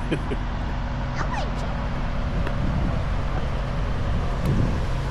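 A car engine idling steadily, with faint voices in the background.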